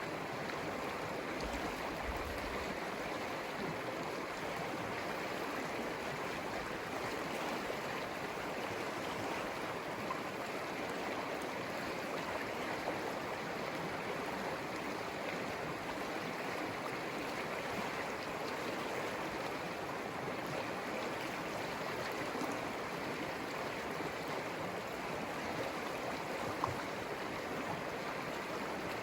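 Conejos River flowing: a steady, even rush of moving water.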